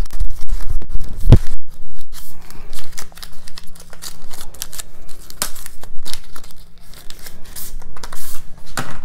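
Paper and cardboard watch-band packaging being pulled and torn open by hand: irregular tearing and rustling, with a single knock about a second and a half in.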